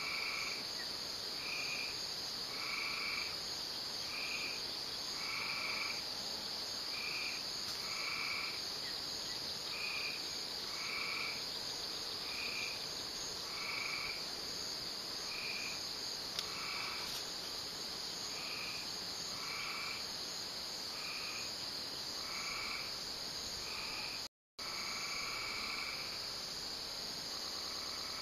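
Evening outdoor chorus: a steady high-pitched insect drone, with a frog giving short calls over and over, about one every second and a half. The sound cuts out completely for a moment near the end.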